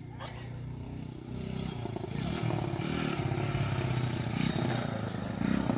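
Motorcycle engine running, growing louder about a second in and staying strong.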